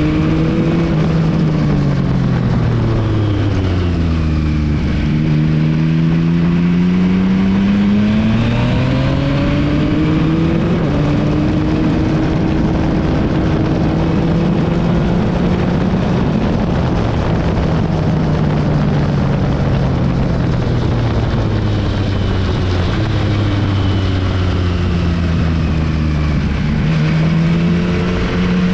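Yamaha MT-09 SP's inline-three engine running through an Akrapovic exhaust, its note falling and rising several times as the revs change: it drops over the first few seconds, climbs again, holds, drops once more and rises near the end.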